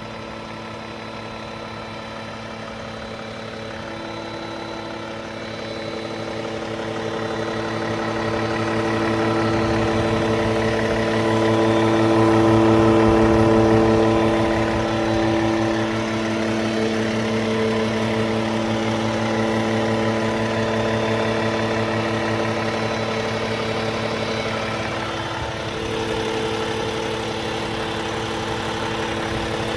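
Cummins ISX15 inline-six diesel idling with a steady buzzing tone over the engine note, which the owner attributes to an upgraded oil pump. It grows louder over the first dozen seconds, then holds steady.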